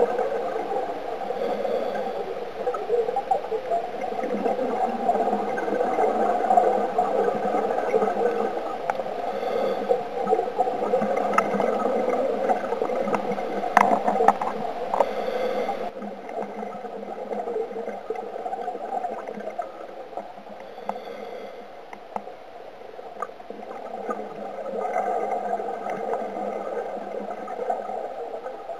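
Underwater scuba breathing: the regulator's gurgling exhaust bubbles and rhythmic breaths, with a few sharp clicks near the middle. It gets quieter from about halfway.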